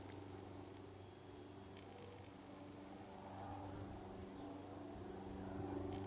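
Faint low steady hum with several overtones, growing louder in the second half, and one brief high falling chirp about two seconds in.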